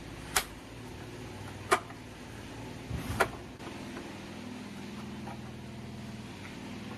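Three sharp clicks about a second apart, with a brief clatter just before the third, from work on a washing machine's rusted top-panel screws, over a steady low mechanical hum.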